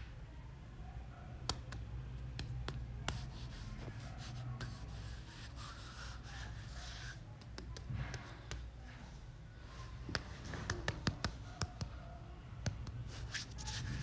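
Scattered sharp clicks, taps and scraping, like hands handling and working materials, over a low steady hum. The clicks come thickest in the second half.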